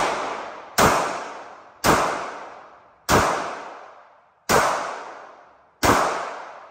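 A 9mm handgun firing slow single shots, one right at the start and five more about every second and a quarter, each with an echo dying away behind it. The shooter is firing until the magazine is empty.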